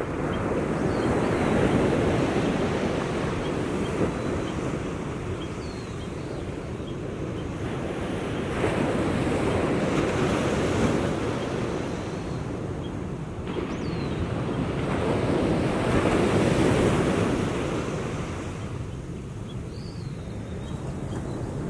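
Small waves washing onto the shore in slow swells, peaking about every six to seven seconds. Now and then a faint, brief high bird note sounds above the surf.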